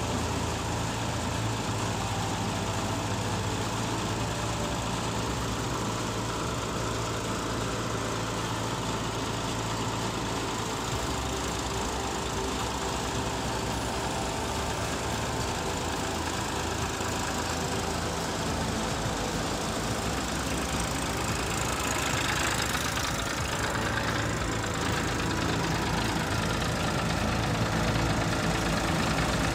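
A tractor's diesel engine running steadily as it drives a groundnut (peanut) thresher, the thresher churning along with it. The sound grows a little louder about three quarters of the way through.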